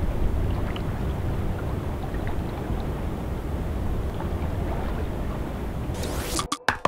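Steady low rush of water flowing below a dam spillway, with wind buffeting the microphone. About six seconds in a brief hiss rises, then the sound cuts out.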